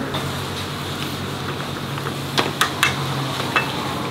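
Pasta frying in a pan over a gas burner, with a steady sizzle and a low hum, and a few sharp metal clinks of tongs against the pan a little past halfway.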